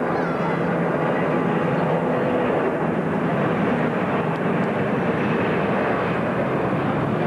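Lockheed L-1011 TriStar airliner climbing out just after lift-off, its three Rolls-Royce RB211 turbofans at takeoff power: a loud, steady jet noise.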